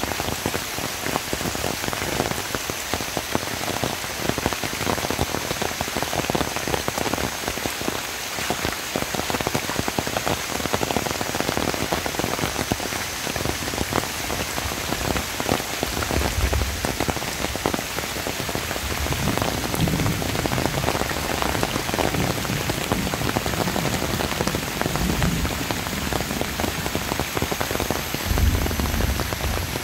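Heavy rain falling steadily, with a few low rumbles in the second half.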